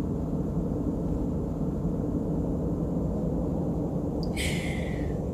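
Steady low rumble with a faint hum under it, and a short hiss about four seconds in that falls in pitch.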